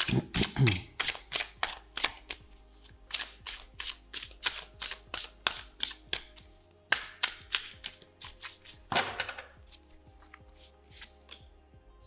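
A tarot deck being shuffled by hand: cards slapping together in quick crisp clicks, several a second, with a longer rustle about nine seconds in, then the clicks thin out. Soft background music plays underneath.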